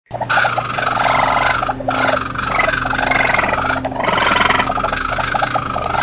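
Raccoon screaming: three long, harsh, raspy screams in a row, each about a second and a half long with short breaks between, over a faint steady low hum.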